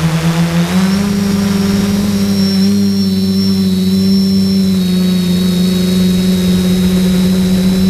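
Electric brushless motors and propellers of a HobbyKing SK450 quadcopter in flight, heard from the camera on board: a steady hum with a thin high whine above it. The pitch steps up about a second in and then holds.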